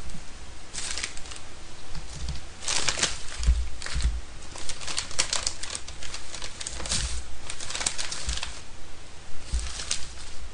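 Paper and plastic food wrapping crinkling and rustling in irregular bursts as it is pulled open by hand around fried tempura, with a few dull low bumps.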